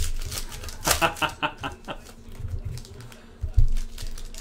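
Foil trading-card pack being torn open and handled: crinkling foil with soft knocks against the table. About a second in there is a short run of rapid pitched pulses.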